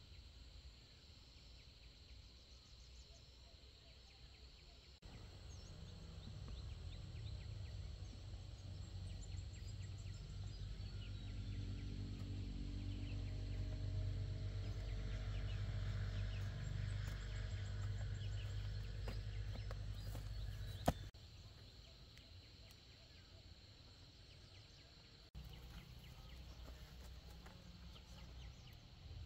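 Countryside field ambience: faint bird chirps and a steady insect hum over a low rumble that swells in the middle, with one sharp click about twenty seconds in.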